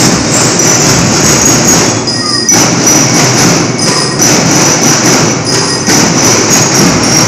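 School drum and lyre band playing a march, loud and continuous, with the drumming filling the sound and bell-lyre notes ringing high above it.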